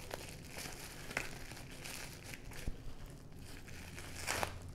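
Plastic bubble wrap crinkling and rustling as it is handled and unwrapped, with a few sharp crackles and a louder rustle near the end.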